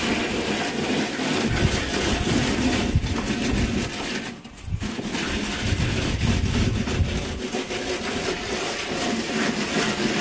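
Hand float rubbing over Ceresit CT 137 mineral decorative render in the final floating pass: a steady rubbing and scraping of the float on the textured wall, with a brief pause about four and a half seconds in.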